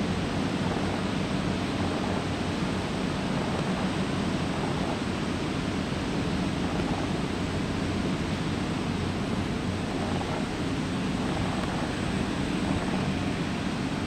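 Steady roar of ambient noise in a large warehouse hall, with a low hum underneath and no distinct events.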